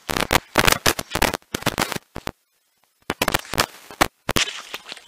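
Loud, irregular crackling and knocking on the action camera's own microphone while its wearer walks. The sound cuts out completely for under a second about halfway through.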